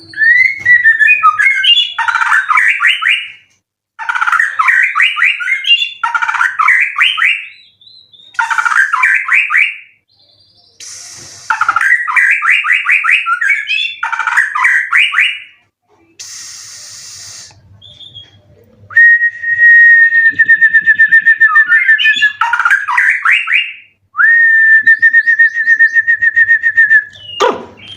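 White-rumped shama (murai batu) singing loudly: a run of fast, rattling song phrases repeated about every two seconds, then two long level whistles with a quick flutter in them near the end.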